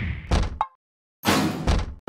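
Cartoon impact sound effects: two short thuds with a brief ring, a moment of dead silence, then two loud slam-like hits.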